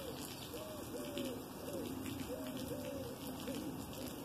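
A dove cooing: a run of short, arched coo notes in quick groups, repeating over a steady background hiss.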